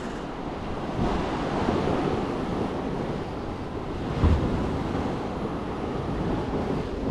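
Steady wash of sea waves against the quay mixed with wind noise on the microphone, with a brief low bump about four seconds in.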